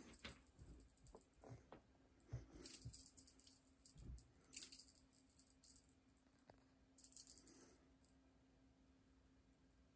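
A small bell jingling in three short shakes, along with a few soft thumps of a cat pouncing onto a blanket.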